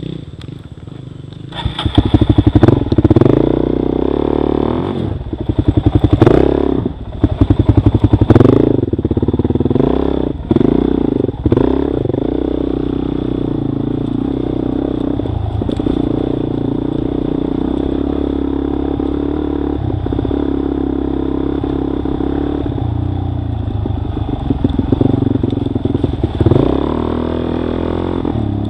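Dual-sport motorcycle engine idling, then revved in a run of loud, uneven throttle bursts for about ten seconds as the bike gets going on rough ground, with knocks and clatter from the bike. It then runs steadily in gear, with a short rise in revs near the end.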